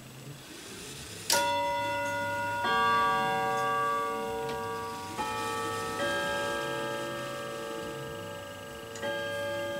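Grandfather clock's quarter chimes ringing: five chime notes struck one after another at uneven spacing, each ringing on under the next. The chime is being tested just after the quarter-chime lever has been oiled.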